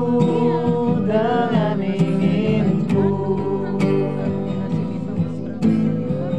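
Acoustic guitar strummed in a steady rhythm, with voices singing a drawn-out, wavering line over it about a second in.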